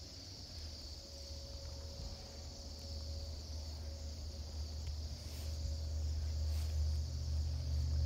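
Massed high chatter of a large flock of birds, blending into a steady high hiss. Under it runs a low rumble that grows louder over the second half.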